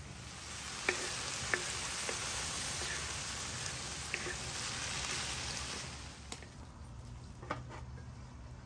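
Chicken pieces sizzling in hot oil on an iron sadj over a wood fire, with a wooden spatula stirring and knocking against the pan a few times. The sizzle dies down about six seconds in, and a couple of clinks follow as a lid is set on the pan.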